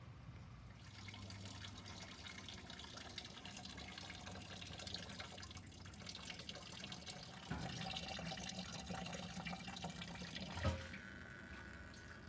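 Rainwater dripping and trickling, a dense patter of small drops. There is a dull knock about seven and a half seconds in, and a louder one about ten and a half seconds in.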